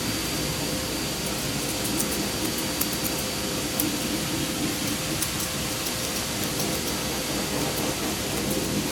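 Water running steadily from a grooming-tub spray hose as a dog is rinsed.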